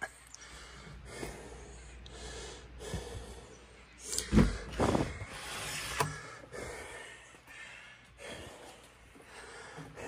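A man breathing close to the microphone, in soft breaths about a second apart, with a few louder, sharper breath sounds about four to six seconds in.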